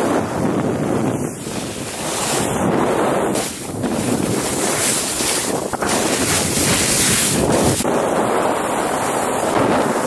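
Wind rushing over the microphone of a camera on a moving skier, mixed with the hiss of skis carving through soft snow. The rushing swells and dips every couple of seconds.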